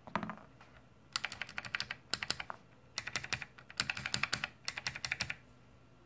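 Typing on a Dell AT101W keyboard fitted with Matias clicky switches (original black Alps stems in Matias housings): sharp clicking keystrokes in four quick runs, with short pauses between.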